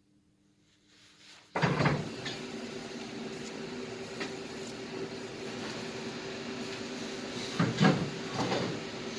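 Argon (TIG) welding arc on an aluminium air-conditioner tube: the arc strikes suddenly about a second and a half in, then buzzes steadily, with a couple of brief louder surges near the end.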